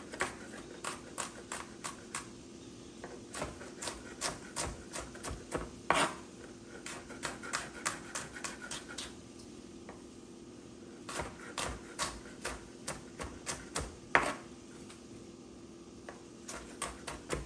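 Chef's knife mincing shallot on a wooden cutting board: runs of quick taps, about four a second, with short pauses between them. Two louder knocks come about 6 s and 14 s in.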